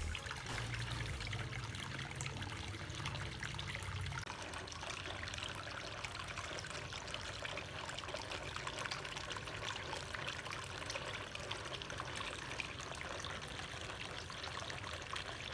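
Water trickling and splashing steadily down a small homemade cement waterfall. A low hum underneath fades out about four seconds in.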